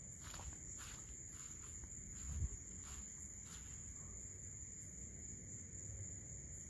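Night insects keeping up a steady high-pitched trill, with faint rustling in the grass and a soft low thump about two and a half seconds in.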